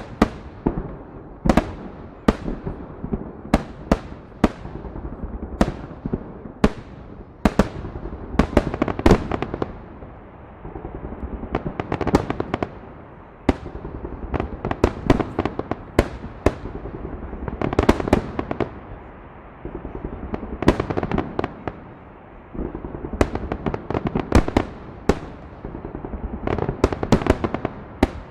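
Fireworks salute: many sharp bangs of bursting shells at irregular intervals, some coming in quick clusters, with echoing rumble between them.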